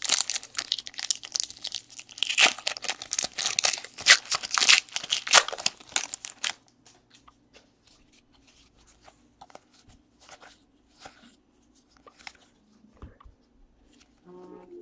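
A trading-card pack wrapper being torn open and crinkled for about six seconds, followed by faint scattered clicks and rustles of cards being handled.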